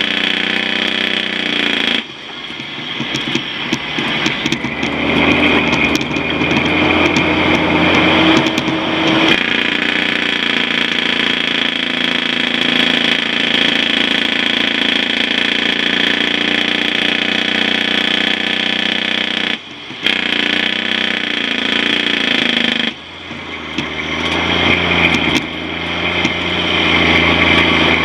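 Log truck's diesel engine pulling under load, with the sound dropping briefly about two seconds in and twice more in the last third, and the engine note climbing again after each drop, as with gear changes.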